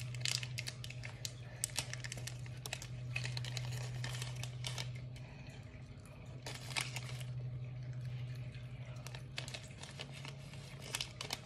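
Plastic candy packet of Reese's Pieces crinkling and tearing as it is opened and handled, in many short crackles, over a steady low hum.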